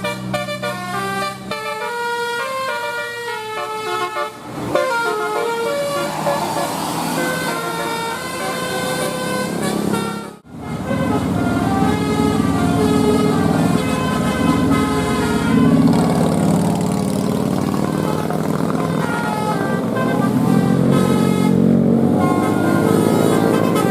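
Bus 'telolet' horns: multi-note musical horns on buses playing quick melodic tunes of stepped notes. The sound breaks off abruptly about ten seconds in and another horn tune follows, now over the low rumble of a bus engine.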